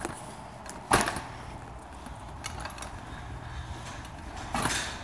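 Furniture being moved: a sharp knock about a second in, and a duller thump near the end.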